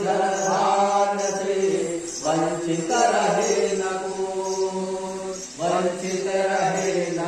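A man chanting a Hindu aarti hymn into a microphone in long held notes, with short breaks for breath about two seconds in and again about five and a half seconds in.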